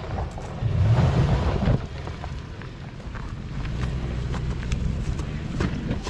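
Lexus GX SUV's engine pulling it slowly up a rocky dirt trail, swelling for about a second near the start, then settling to a steady low drone. Scattered light clicks of stones under the tyres.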